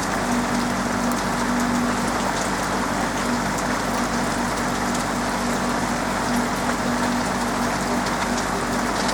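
Steady rain falling on a roof, with many sharp ticks of single drops over the even hiss, and a steady low hum underneath.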